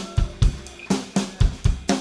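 Drum kit playing a steady beat, kick drum thumps among snare and cymbal hits, about four strokes a second.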